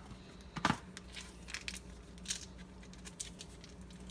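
Foil wrapper of a cream cheese block crinkling and tearing as it is opened, with one knock less than a second in.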